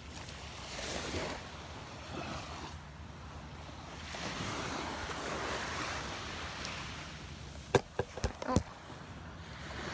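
Small Gulf waves lapping and breaking at the shoreline, a soft rushing that swells and fades. Near the end comes a quick run of sharp clicks and knocks, the loudest sounds here, as the handheld camera is jostled and tipped sideways.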